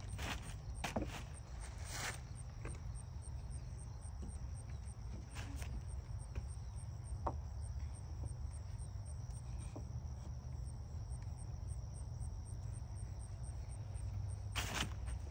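Crickets chirping steadily in a continuous high trill, with a few faint clicks and knocks scattered through it.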